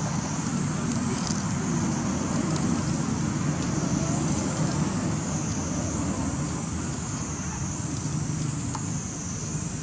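Steady outdoor background noise: a low rumble with a high, slowly wavering hiss on top.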